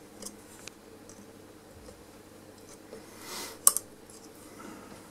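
Small metallic clicks and a brief scrape as the dial-cord tension spring is unhooked from a valve radio's plastic tuning drum, with one sharp click about three and a half seconds in.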